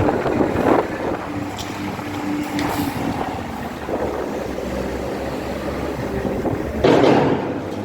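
Vehicle engine running steadily, with a loud burst of noise about seven seconds in.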